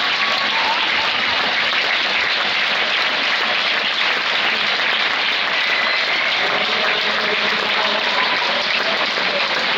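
Spectators applauding and cheering steadily, with voices calling out over the clapping in the last few seconds.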